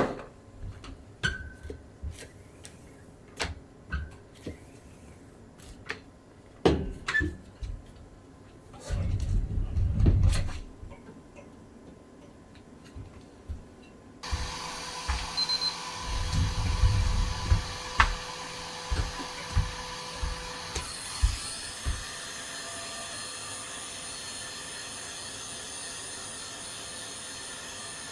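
Screen-printing work sounds: scattered sharp clicks and knocks of equipment being handled, and a low scraping rumble lasting about a second and a half. From about fourteen seconds in there is a steady machine hiss with a faint hum.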